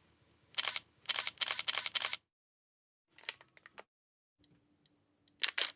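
Camera shutter clicks in quick succession: one early, a run of about five close together, then a few lighter clicks and a double click near the end, with silence in between.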